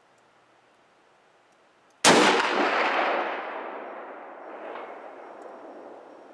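A single .338 Lapua Magnum rifle shot about two seconds in, its report rolling away in a long echo that fades over about four seconds, with a second, smaller swell partway through the fade.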